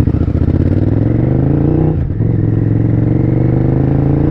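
Sport motorcycle's V-engine accelerating hard, its pitch climbing, with a brief drop about two seconds in as it shifts up a gear, then climbing again.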